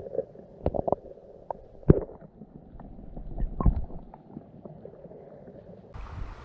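Muffled gurgling water with a handful of sharp knocks. The loudest knock comes about two seconds in and another just past three and a half seconds. The whole sound is dull, with its highs cut off.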